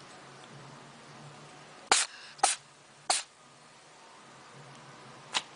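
A cat sneezing three times in quick succession, about half a second apart, then once more, more softly, a couple of seconds later.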